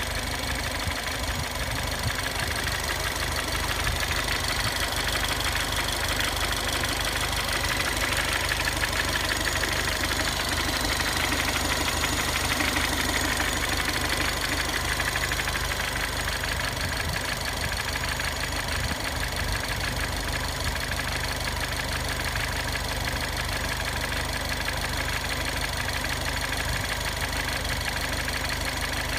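Ford Fiesta ST's 1.6-litre turbocharged four-cylinder engine idling steadily, warm after a short drive.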